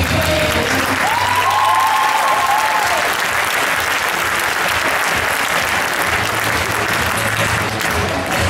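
Audience applauding in a gymnasium during a group gymnastics routine, with the routine's music coming back in underneath near the end.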